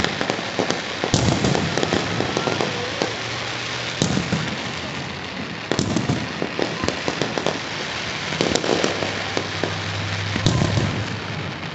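Fireworks display: aerial shells bursting in a string of booms, the loudest about a second in, near the middle and twice toward the end, with dense crackling filling the gaps between them.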